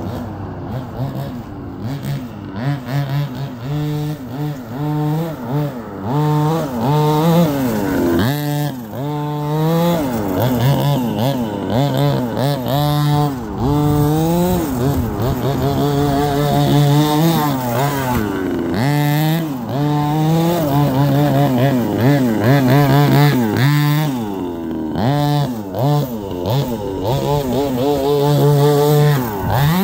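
1/5-scale King Motor T-1000 gas RC truck's small two-stroke engine revving up and down over and over as it is driven, its pitch rising and falling with short steady stretches in between.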